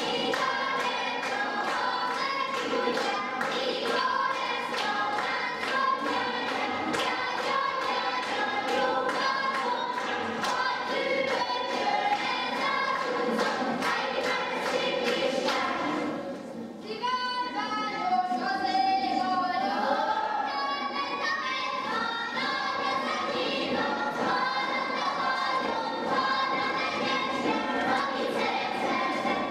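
A group of children singing a Hungarian folk song while dancing, with a steady beat of clapping and stamping through the first half. The singing dips briefly just past the middle, then resumes.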